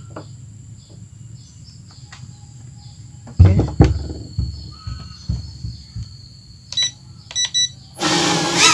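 A micro FPV drone's tiny motors spin up about eight seconds in, a loud high whine that wavers in pitch as the drone takes off. Before that, two low thumps a little past halfway and a few short sharp clicks.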